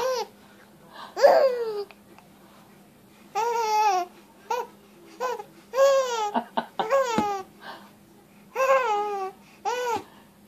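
Baby laughing in a string of short, high-pitched squealing bursts with pauses between, set off by a napkin tickling her face as it wipes her mouth.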